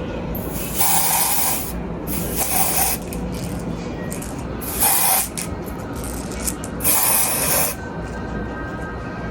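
EBIN lace tint aerosol spray hissing in about four short bursts, a second or less each, as it is sprayed onto a wig's lace to tint it darker.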